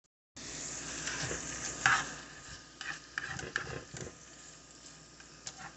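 Sliced frankfurter rounds sizzling in a nonstick frying pan while a spatula stirs them, scraping and knocking against the pan. The loudest knock comes about two seconds in.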